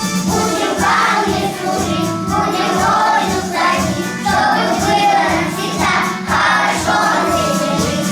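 Group of young children singing a song together over a recorded backing track with a steady beat.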